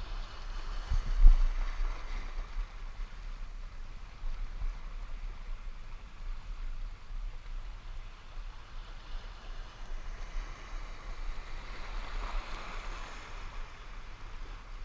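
Small sea waves washing over shore rocks, swelling twice, with wind buffeting the microphone and a single thump about a second in.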